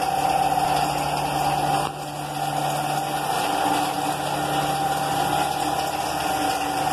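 Air compressor running steadily while a gravity-feed paint spray gun hisses, the hiss dipping briefly about two seconds in.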